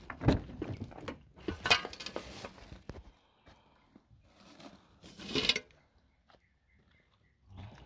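Handling noise: a few short bursts of rustling against the microphone, the loudest about five seconds in, with a quiet stretch near the end.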